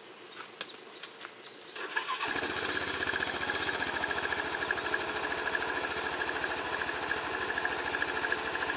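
A UTV's engine is started about two seconds in and then idles steadily with a fast, even pulse.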